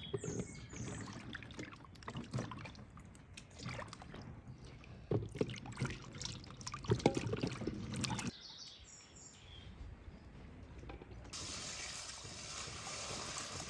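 Hands swishing green plums in a metal basin of water and dropping them into a metal colander, with splashes and sharp knocks against the metal. Near the end, a steady stream of water is poured from a metal milk can into a metal basin of cherries.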